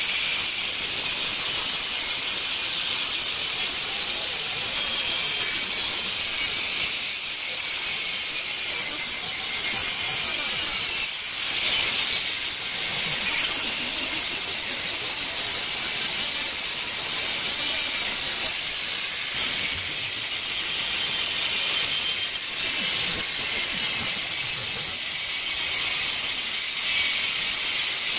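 Angle grinder with a polishing pad working along the edge of a granite slab: a steady, high-pitched hiss of pad on stone, easing off briefly a couple of times.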